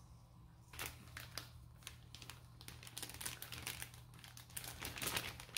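Plastic zip-top bag crinkling and rustling as a raw steak is pushed into it by hand: faint, irregular crackles and clicks, over a steady low hum.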